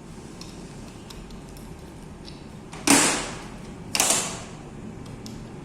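Light clicks of tool parts being handled, then two sudden loud scraping bursts about a second apart, each fading within a second.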